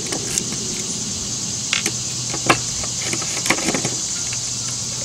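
Screwdriver backing out the wire-clamp screws in a solar panel's plastic junction box: a few small clicks and taps of metal on plastic, the sharpest about halfway through, over a steady hiss and hum.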